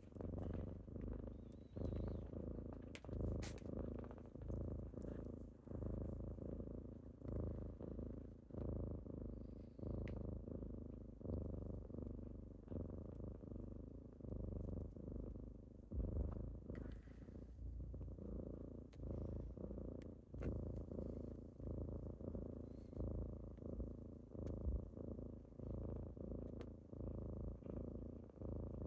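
Kitten purring steadily, the rumble swelling and fading about every second and a half as it is stroked.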